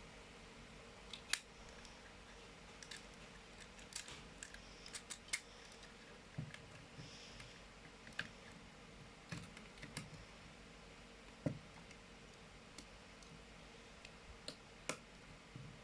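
Plastic clicks and small knocks from an Optimus Prime reissue toy being handled. The clicks come irregularly, with a few soft, duller knocks among them, over a faint steady hum.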